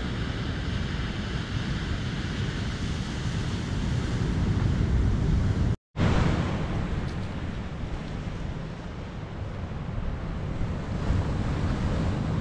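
Ocean surf washing onto a beach, with wind buffeting the microphone as a heavy low rumble. The sound drops out for a moment about six seconds in, then the surf and wind carry on.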